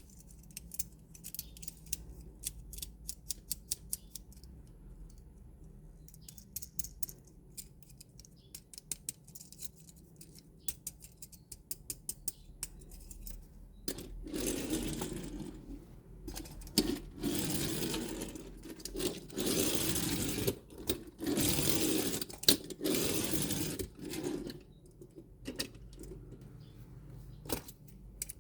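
Hands handling small toys and their packaging: a run of light clicks and taps, then from about halfway through several seconds of rustling in bursts, the loudest part, before the clicking returns near the end.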